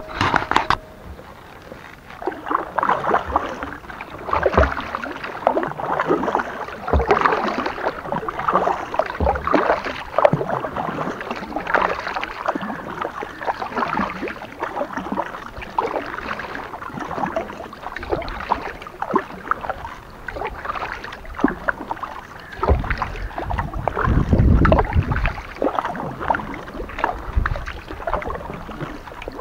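Kayak paddle strokes splashing in the water, an uneven run of splashes every second or two. A low rumble comes in about three-quarters of the way through.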